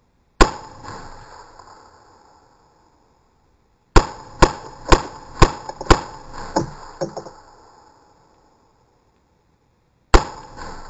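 Rock River Arms AR-15 in .223/5.56 firing: a single shot, then a string of five quick shots about two a second, then one more shot near the end, each with a short echoing tail. A few fainter knocks follow the string of five.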